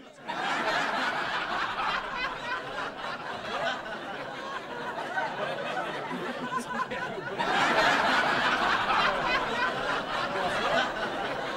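Laughter that starts abruptly and swells louder about seven and a half seconds in.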